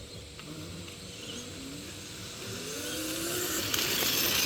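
48-volt electric mini bike's motor whining and rising steadily in pitch as the bike speeds up, with a rushing noise that builds toward the end.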